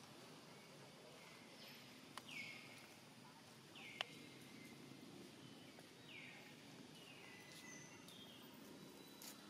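Faint bird calls: a short falling note repeated several times, every one to two seconds, over quiet outdoor background. Two sharp clicks, about two and four seconds in, the second the loudest sound.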